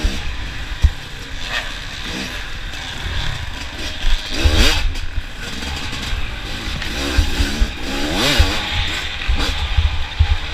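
Off-road dirt bike engines revving, rising and falling in pitch as bikes go past, most clearly twice, about four and a half and eight seconds in, over low thumping rumble.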